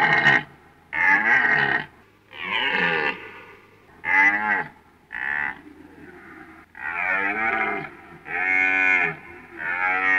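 Red deer stags roaring in the rut: a series of about eight separate roars, each up to about a second long, with short gaps between them.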